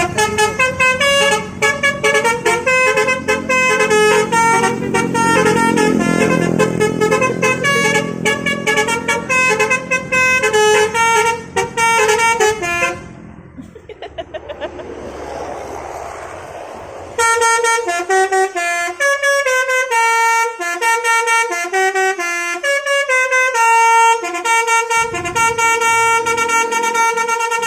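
Indonesian bus 'telolet' horns, multi-tone air horns playing quick stepping melodies. The tune runs for about thirteen seconds, breaks off for a few seconds of quieter road noise, then starts again for the rest.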